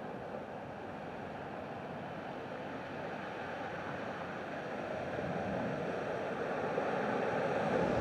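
Steady wash of sea surf along a rocky shore, slowly growing louder.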